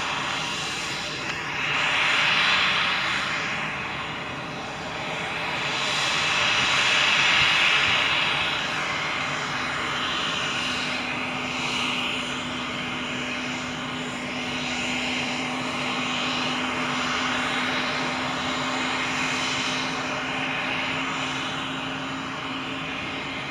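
Cessna 560XL Citation Excel's twin Pratt & Whitney Canada PW545 turbofans running at taxi power as the jet rolls along the taxiway: a steady jet hiss and whine that swells twice in the first eight seconds, with a low steady hum joining about ten seconds in.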